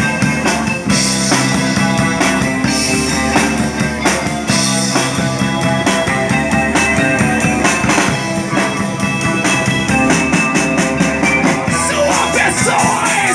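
A live rock band playing an instrumental passage: a drum kit keeping a fast, steady beat under sustained bass and guitar tones, with the pattern changing near the end.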